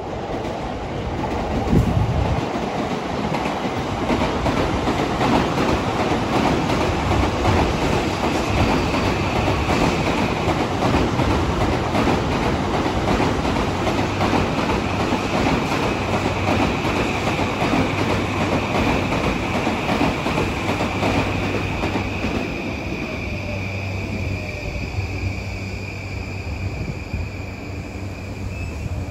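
An N700-series Tokaido Shinkansen and a JR commuter train running past together on neighbouring tracks, a dense steady rush of wheel and rail noise with some clatter. About halfway a thin, steady high whine comes in and lingers as the Shinkansen draws away.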